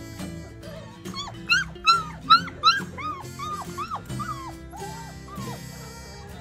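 Four-week-old Bernedoodle puppies crying in a run of about a dozen short, high yelps, loudest about two seconds in and tapering off, over background music.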